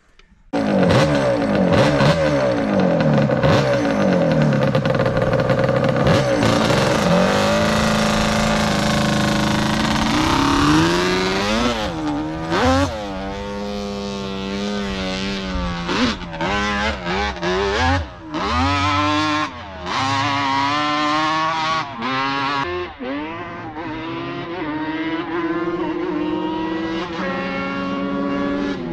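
Yamaha Banshee quad's two-stroke twin engine, built with a 4mil China cylinder and carburettors, revving hard and running through the gears, its pitch rising and falling with the throttle. It starts loud and close about half a second in, grows fainter and farther off after about twelve seconds, with several brief drops in the engine note.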